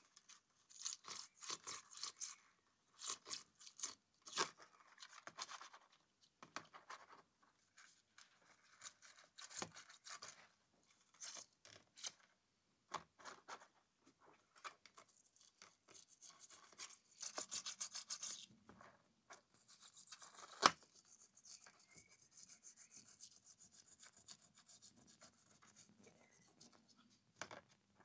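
Small brush scrubbing metal camshaft bearing caps from a VW Golf GTI 16V head in a tray of petrol, in short bursts of strokes, working thick gritty old oil off them. A single sharp tap about two-thirds of the way through.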